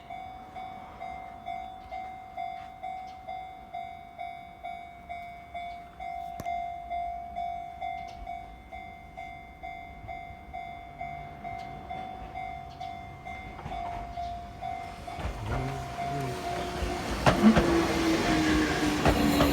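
Japanese railway level crossing warning bell ringing steadily at about two strikes a second. About fifteen seconds in, an Enoden electric train comes in, rumbling louder, with a falling whine and loud wheel clacks over the crossing that drown out the bell.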